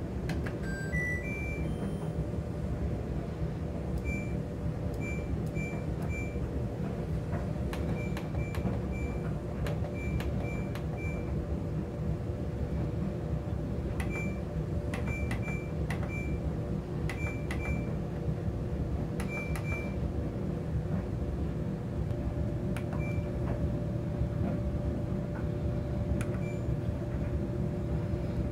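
Front-loading washing machine's control panel: a rising three-note chime as it powers on, then many short, high electronic beeps, some single and some in quick runs, as buttons and the cycle dial are set. A steady low hum runs underneath.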